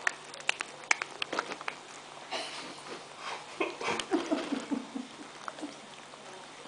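A cat crunching and chewing Wotsits corn puffs, with a quick run of sharp crunches in the first second or two, then looser smacking and licking of its lips.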